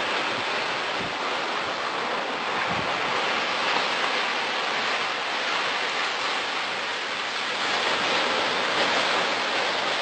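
Steady rushing wash of ocean surf on the beach, mixed with wind on the microphone.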